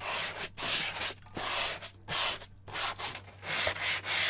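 Sandpaper rubbed back and forth on a bare wood panel, about one and a half strokes a second, smoothing water-damaged wood to even out its colour before varnishing.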